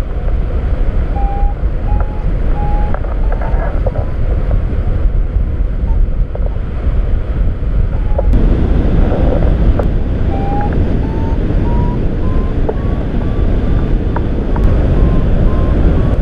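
Wind rushing over the microphone of a rigid-wing hang glider in flight, louder from about eight seconds in. Over it a variometer beeps in short tones, and over the last six seconds the beeps climb steadily in pitch, the sign of the glider climbing in rising air.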